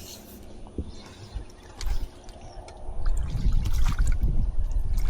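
Water trickling and dripping, with a few light clicks. A loud low rumble sets in about three seconds in.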